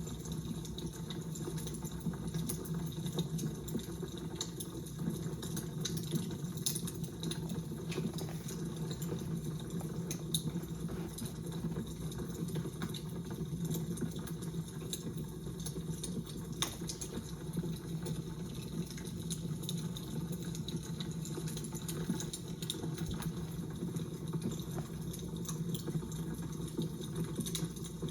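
Fire crackling: irregular small pops and snaps over a steady low hum.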